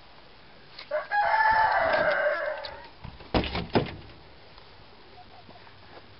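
A rooster crowing once, a long call starting about a second in and trailing off, followed by a few sharp knocks.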